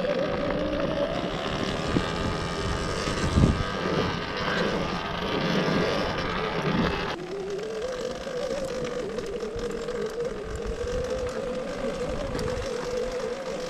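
Electric enduro bike's motor whining steadily as it is ridden over rough ground, the pitch wavering slightly with the throttle. A loud rushing noise sits under it for the first half and drops away suddenly about seven seconds in.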